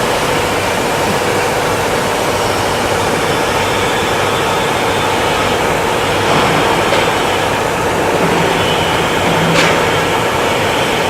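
Plasma cutting machine cutting metal: a loud, steady hiss with a faint steady hum underneath.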